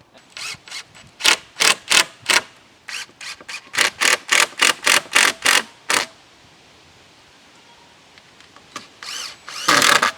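Hammer blows on wood, a quick run of sharp strikes at about three to four a second for several seconds, then a pause and a few more heavy strikes near the end.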